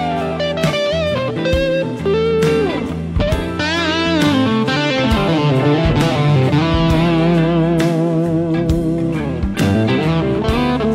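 Vintage V6MRHDX 'Summer Of Love' Strat-style electric guitar with single-coil pickups, played lead: single-note lines with string bends, then long held notes with a wide, wavering vibrato through the middle.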